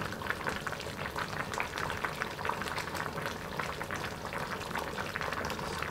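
A pot of spareribs and vegetables in Cantonese sauce simmering: a steady bubbling with many small pops.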